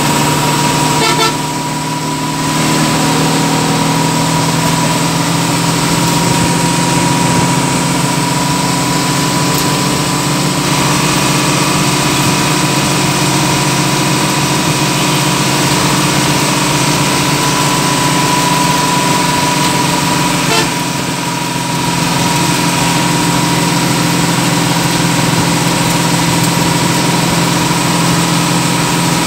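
Bus heard from inside the cabin while driving at speed: a steady engine drone and road noise with a continuous high whine. The level drops briefly twice, about a second and a half in and again around twenty-one seconds.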